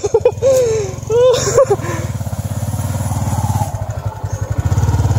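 Small underbone motorcycle engine running steadily under load up a steep slope, with a fast even throb that grows a little louder near the end.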